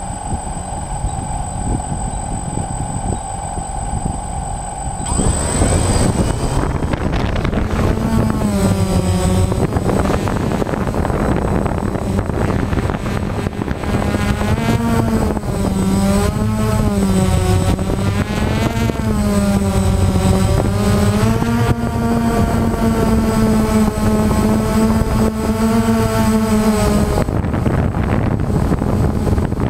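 Camera drone's electric motors and propellers: a steady hum while it sits on the ground, turning louder about five seconds in as it lifts off. Then a whine that rises and falls in pitch as it climbs. Near the end the whine drops away, leaving a rushing noise.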